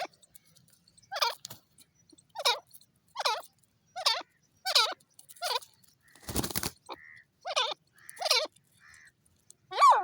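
Francolin (teetar) calling: a series of short, harsh notes repeated about once a second, each sliding down in pitch, with a brief rustling noise about six seconds in.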